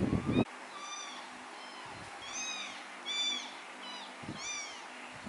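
Newborn kitten mewing repeatedly while being bottle-fed: a string of short, high-pitched mews that each rise and fall. A louder, deeper burst of sound cuts off suddenly about half a second in.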